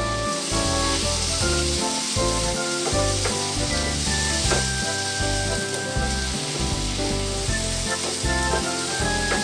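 Food sizzling as it fries in a pan, a steady hiss, over background music.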